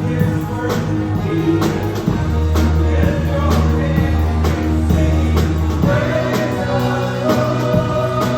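A song playing with a steady drum beat, held bass notes and a sung melody that grows stronger about two thirds of the way through.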